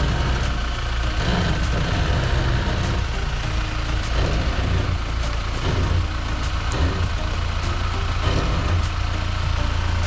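Off-road 4x4's engine running steadily at low revs as it crawls over the course.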